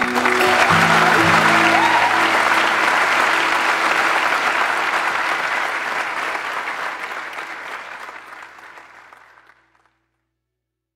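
Large audience clapping, with a few notes of music under it at first; the applause fades away and stops about nine and a half seconds in.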